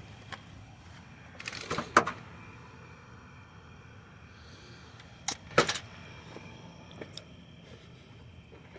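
Short bursts of handling noise: a cluster of clicks and knocks about two seconds in, another about five and a half seconds in, and a couple of lighter clicks near the end.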